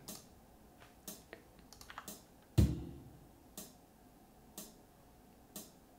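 Sampled drum-machine loop playing back: short hi-hat ticks about once a second and one deep bass-drum thump about two and a half seconds in. The pattern runs on a seven-step count, one short of the eight beats wanted, as the builder thinks.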